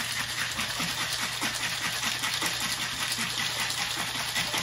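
Ice rattling in a lidded jar being shaken hard as a cocktail shaker: a fast, even rattle of clinks.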